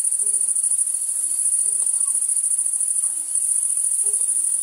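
A dense, steady, high-pitched trill of meadow insects, pulsing rapidly without a break.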